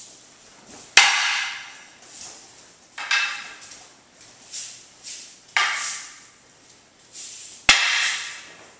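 Wooden jo staffs knocking sharply together in aikido weapons practice, about a second in and again near the end, with several shorter rustling, rushing bursts of movement between the knocks.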